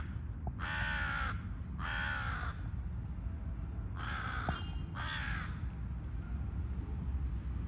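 Crow cawing: harsh calls in two pairs, each pair about a second apart, over a steady low rumble.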